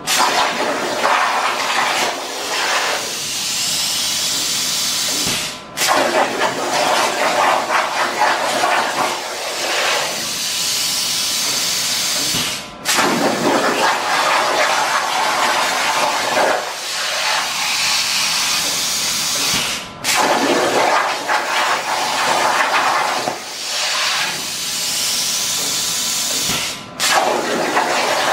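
CNC plasma torch (Hypertherm Powermax45 XP) cutting steel plate: a loud, steady hissing rush of the plasma arc and air jet. It cuts out for a moment about every seven seconds, four times, and restarts at once as the torch finishes one cut and pierces for the next.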